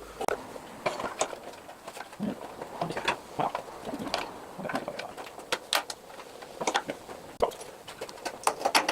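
Irregular small clicks, taps and knocks of parts and tools being handled during reassembly of a lawnmower, in a small room.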